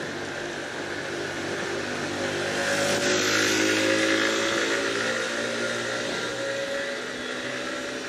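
Motor vehicle engine passing close by in street traffic: the engine hum and tyre noise grow louder to a peak about three to four seconds in, then fade.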